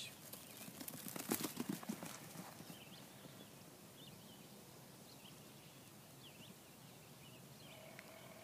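A quick patter of footfalls on the ground for about two seconds, then faint outdoor background.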